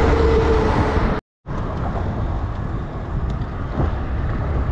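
Wind buffeting the microphone: a steady low rumble with a hiss above it, broken by a split-second drop to silence about a second in.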